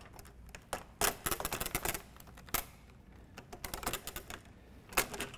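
Snap-on cover of a vertical cable manager being pulled off its fingers, its clips snapping free in quick rattling clusters of clicks, with a last sharp snap near the end.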